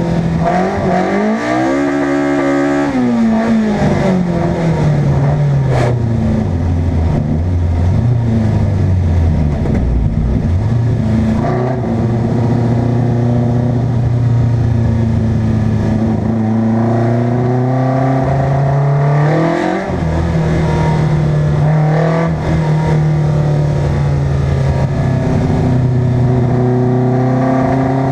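Car engine driven hard, its pitch climbing and falling as it accelerates, lifts off and changes gear, with a sharp crack about six seconds in.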